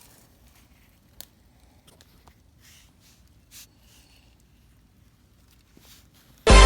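Low room tone with a few faint scattered clicks and rustles. Electronic dance music then cuts in loudly near the end.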